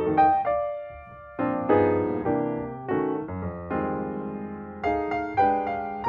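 Background piano music: a gentle melody of struck notes and chords, each fading after it is played, with a brief quieter gap about a second in.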